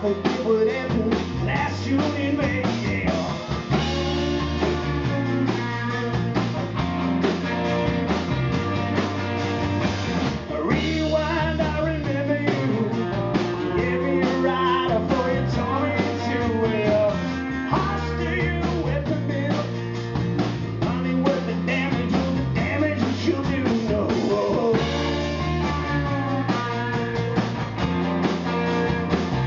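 Live rock band playing: lead vocals over strummed acoustic guitar, electric guitar, electric bass and drums.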